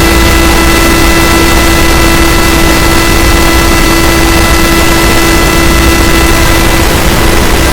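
Very loud, distorted electronic noise with a steady held buzzing tone, without a break; several fainter higher tones drop out about seven seconds in.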